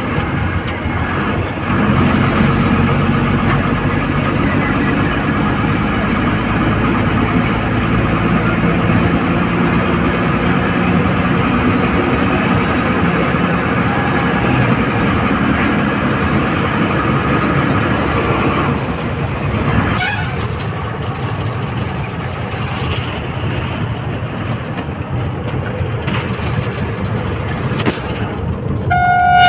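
Old Tata bus's diesel engine running steadily under way, heard from on board; its note falls back about two-thirds of the way through. A horn sounds briefly near the end.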